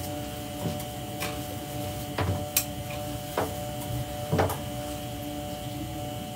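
A steady hum of several fixed tones with scattered soft clicks and rustles, about half a dozen of them, from a towel and glasses being handled.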